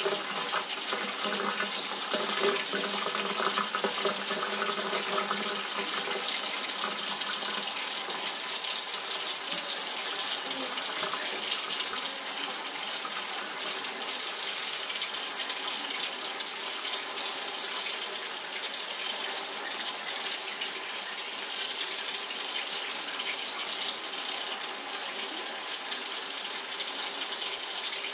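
Kitchen faucet running a steady stream into a stainless steel sink, the water splashing over a small puppy and the hands rinsing it.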